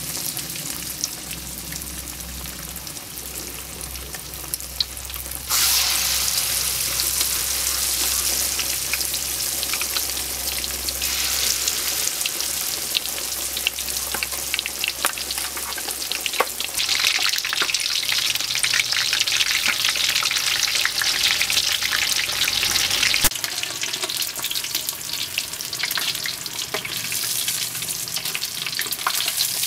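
Batter-coated chicken deep-frying in hot oil in a wok: a dense, steady sizzle full of fine crackles, which gets louder about five seconds in.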